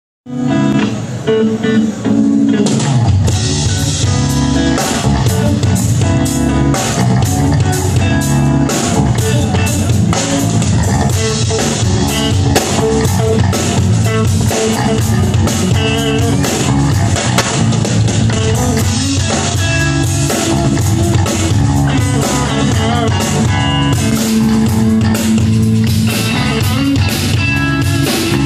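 Live band playing: guitar and bass, with a drum kit coming in about three seconds in and keeping a steady beat.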